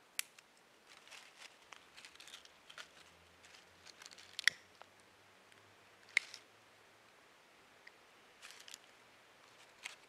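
Dry leaves and twigs rustling and crinkling as a small campfire is laid and lit by hand, with a few sharp clicks, the loudest about four and a half and six seconds in.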